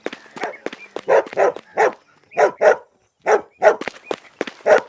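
A dog barking repeatedly in quick runs of short barks, with a pause of about a second near the middle.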